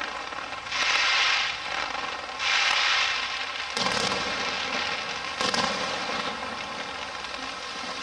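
Aerial fireworks: two long hissing crackles about one and three seconds in, then two sharp bangs with a rumbling echo about four and five and a half seconds in.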